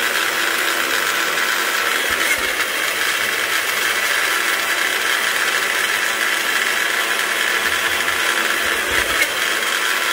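Farberware personal blender running steadily, its motor grinding hot Cheetos into crumbs in the cup.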